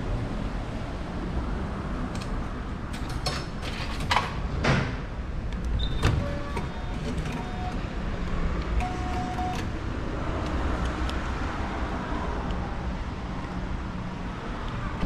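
Ferry ticket vending machine in use: a run of sharp clicks and clatters from about three to five seconds in, then a few short electronic beeps. A steady low hum runs underneath.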